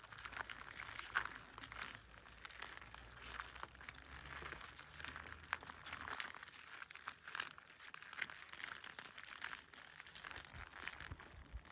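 Plastic pouch of expanding post-setting foam crinkling and crackling as it is handled and squeezed, an irregular run of small rustling crackles.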